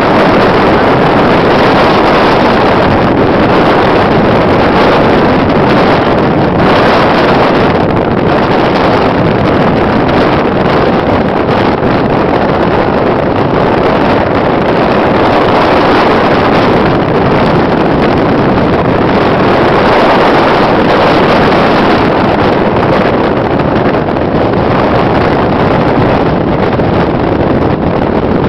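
Loud, steady rush of wind buffeting the microphone with road and engine noise from a moving vehicle, with no distinct engine note.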